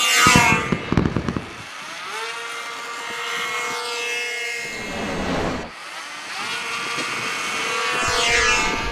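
Twin-propeller RC model airplane flying low passes, its motor and propeller whine dropping in pitch each time it goes by. It passes three times: right after takeoff, again about halfway through and once more near the end.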